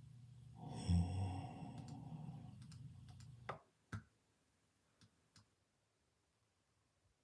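A person snoring: a long noisy breath with a strong low buzz near its start. It is followed by about four short, sharp clicks.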